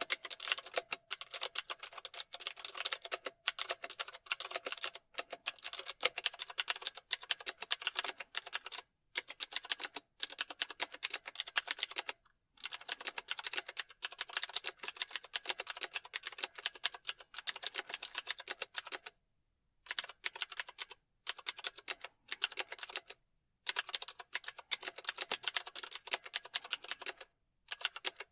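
Fast, continuous typing on a computer keyboard, the keys clicking in quick runs broken by brief pauses every few seconds.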